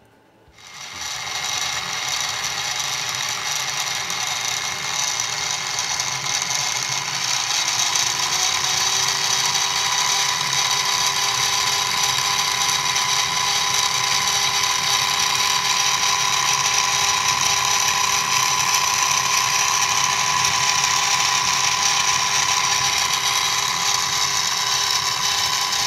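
Mini milling machine with a 1/8 inch end mill cutting a slot in aluminum: the spindle motor's steady whine and the cutter's hiss start about half a second in and hold steady.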